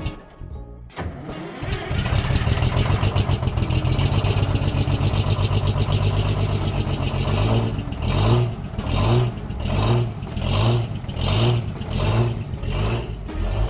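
Two-stroke Detroit diesel engine of a Peterbilt cabover dump truck coming to life after a hard start and running loudly with a fast, even firing rattle. About halfway through, the sound turns into a regular pulsing, roughly one surge every three-quarters of a second.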